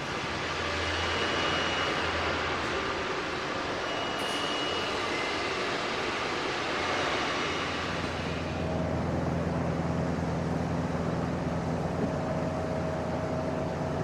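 A steady mechanical rumble and hiss of a running engine, with a low hum that grows stronger about eight seconds in.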